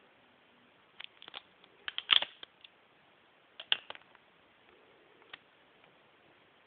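Scattered short clicks and knocks of a camera and a plastic toy blaster being handled and moved about. There are a few clicks about a second in, the loudest cluster just after two seconds, another pair near four seconds and a single tick after five.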